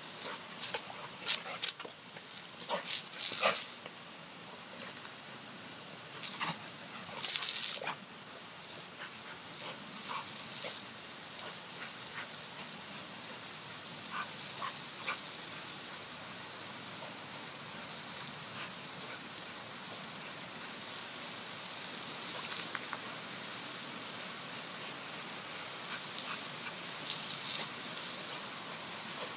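Garden hose spraying a steady hissing jet of water while a dog lunges and snaps at the stream. Several louder bursts of spray and splashing come in the first eight seconds, and a few more near the end.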